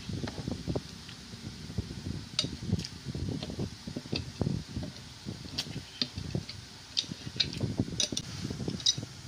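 Close handling and table noise: irregular low knocks and rubbing, with light clicks of a metal fork against a plate.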